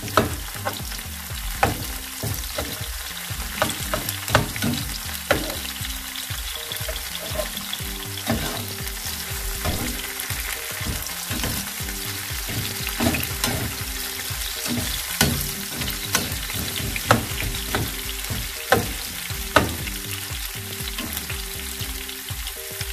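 Chopped onion and cherry tomatoes sizzling in oil in a nonstick frying pan. They are stirred, with irregular clicks and scrapes of the utensil against the pan.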